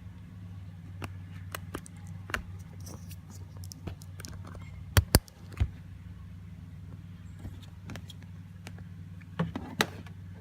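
Scattered sharp clicks and taps over a steady low hum, with two loud clicks close together about five seconds in and a few more near the end.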